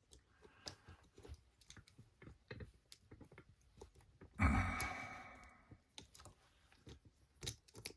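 Small metal clicks and scrapes of a hand-made tension tool and pick being fitted into the keyway of a four-lever Master padlock held in a vise. About four and a half seconds in there is one louder sound that fades over about a second and a half.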